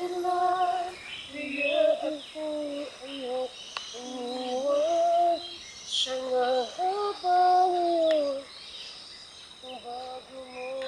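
A high voice singing a slow melody without clear words, with long held notes that slide and bend between shorter phrases, over a faint steady high background tone.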